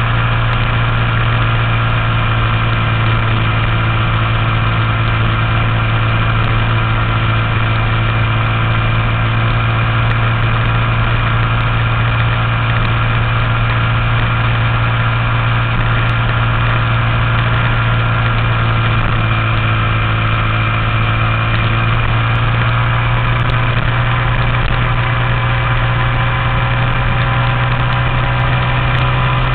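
Honda Z50 Monkey minibike's single-cylinder four-stroke engine, bored out with an 88cc kit and running through an aftermarket exhaust, pulling at a steady cruising speed with an even, unchanging note.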